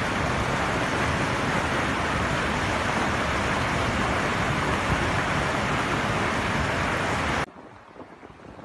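Flash-flood water rushing down a street, a loud steady churning rush. About seven and a half seconds in it cuts off abruptly to a much quieter flow.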